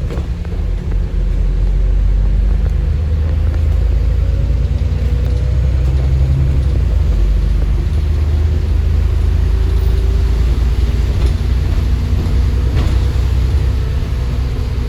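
Alexander Dennis Enviro 400 MMC double-decker bus under way, its diesel engine running with a steady deep rumble and a faint whine that slowly rises and falls.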